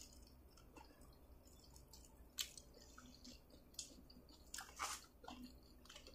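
Faint close-up chewing of corn on the cob, with a few short clicks, the clearest about two and a half and five seconds in.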